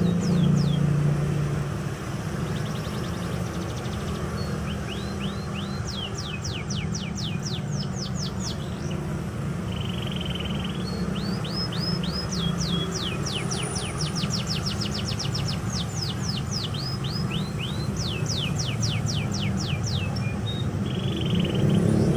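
Canary singing: runs of quick, high, downward-sweeping whistled notes, several a second, in trills of a few seconds each, over a steady low background rumble.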